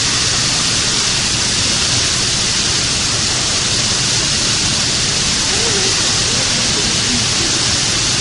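Loud, steady rushing hiss, like falling water, that holds unchanged throughout.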